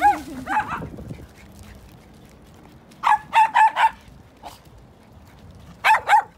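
Dogs play-barking in short high-pitched yips: a few at the start, a quick run of four about three seconds in, and two more near the end.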